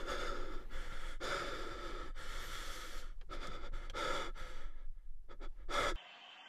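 Television static hiss, a glitch sound effect, that stutters with several brief dropouts and cuts off suddenly near the end.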